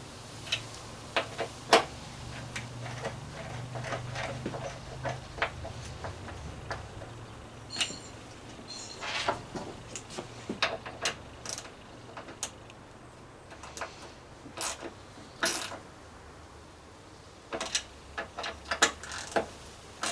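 Irregular clicks and light knocks of a screwdriver working the mounting screws of a powder-coated black scooter grab rail, with metal and plastic taps as the rail is handled.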